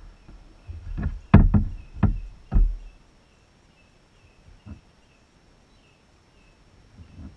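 Knocks and bumps on a kayak hull, four or five sharp ones within about a second and a half, with a faint chirping repeating about twice a second behind them.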